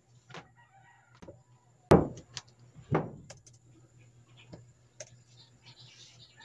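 Laptop being set down on a folding metal laptop stand and adjusted: a few light clicks, with two louder knocks about a second apart, around two and three seconds in.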